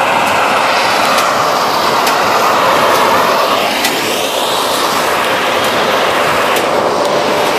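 A John Deere tractor and a New Holland 311 small square baler running together while baling hay. The engine and the baler's driveline make a steady loud drone, with a few sharp clicks scattered through it.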